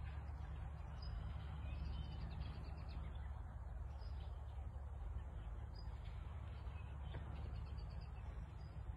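Birds chirping briefly now and then over a steady low rumble and a faint rustle of hemp leaves brushing past.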